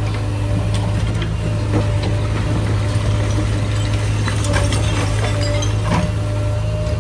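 Engine of heavy earthmoving machinery running steadily with a deep, unbroken hum, with scattered light clinks and knocks over it.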